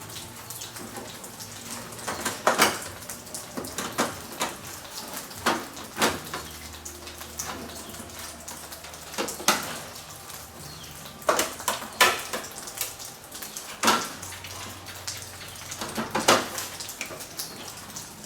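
Irregular sharp clicks and clinks of small hard objects being handled, about one every one to two seconds, over a faint low hum that comes and goes.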